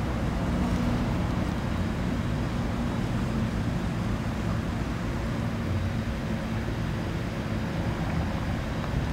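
Steady low drone of a distant engine.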